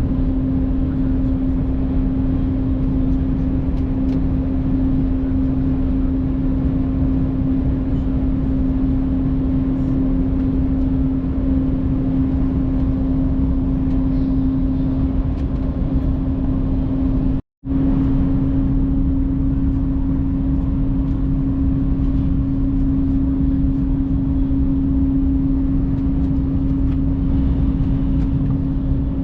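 Cabin noise inside an Al Boraq high-speed train running at speed: a steady rumble with a constant droning hum over it. The sound cuts out for an instant about two-thirds of the way through, then carries on unchanged.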